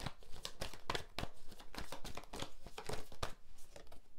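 A deck of tarot cards being shuffled by hand: a quick, irregular run of papery slaps and crackles.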